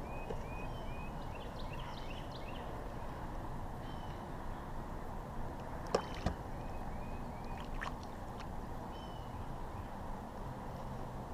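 Steady water noise with a bird chirping repeatedly in short notes, and two sharp splashes about six seconds in with another near eight seconds, as a hooked largemouth bass thrashes at the surface beside the kayak.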